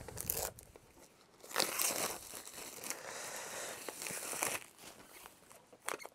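Packaging of a collector's film box being handled: a few seconds of rustling and scraping as contents are slid out, with light clicks before and after.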